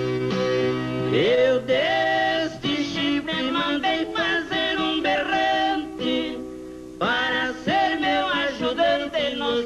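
Male voices singing a caipira song in harmony over a strummed ten-string viola caipira. The singing starts about a second in and breaks off briefly a little past halfway before going on.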